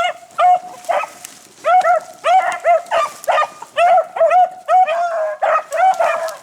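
Beagles baying on a rabbit's trail: rapid short, arching calls, about two or three a second. There is a brief gap about a second in, and the calls overlap later as more than one dog gives voice.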